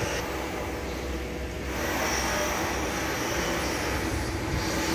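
Steady mechanical drone of a large engine running, with a thin high whine that fades out for the first couple of seconds and then returns.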